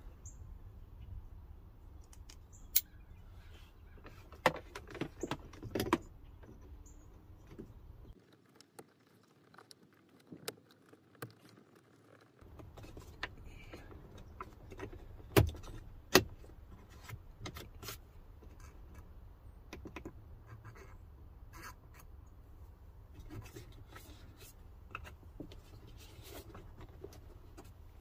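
Sharp plastic clicks and small rattles of a wiring-harness plug and a plastic dash switch insert being handled, plugged together and pressed into a dash opening. The loudest clicks come in two clusters, a few seconds in and about halfway through.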